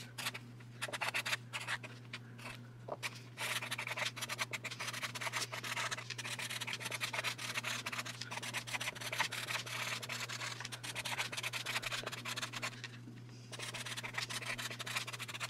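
Felt-tip marker scratching across card stock in quick handwriting strokes, lighter for the first few seconds, pausing briefly near the end.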